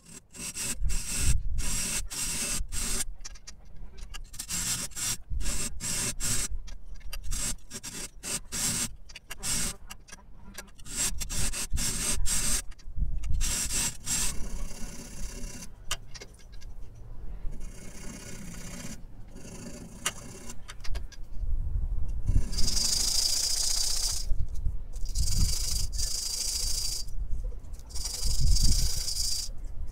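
Hacksaw cutting a small steel part clamped in a bench vise, in quick regular strokes about two or three a second. In the last several seconds come longer, hissing strokes about a second apart: a small metal piece being rubbed back and forth on sandpaper to smooth it.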